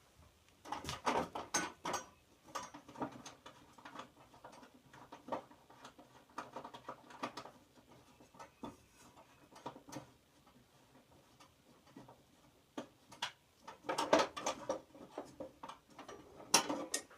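Irregular clicks, knocks and light rattles of hand tools and metal parts being handled at a table saw while working the saw blade loose. They come in clusters about a second in and again near the end, with scattered ticks between.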